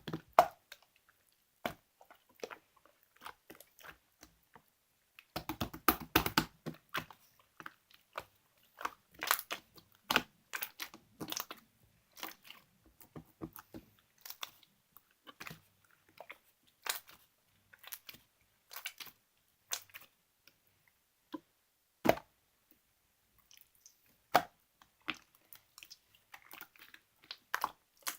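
Clear, colourless slime being squeezed and pressed by hand, giving irregular wet clicks and pops, dense in runs and scattered elsewhere, with one loud pop about two-thirds of the way in.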